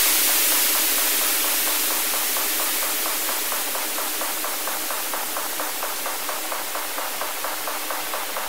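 Electronic dance music breakdown: the bass drops out and a white-noise wash slowly fades. A quiet, filtered, evenly spaced percussion ticking comes in under it.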